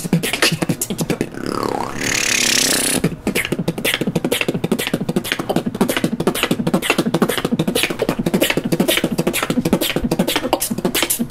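Solo beatboxing: a fast, steady run of mouth-made drum hits over a low, pitched bass line. About a second and a half in, a short sliding pitch sweep leads into a sustained hissing noise that lasts about a second, and then the rapid rhythm resumes.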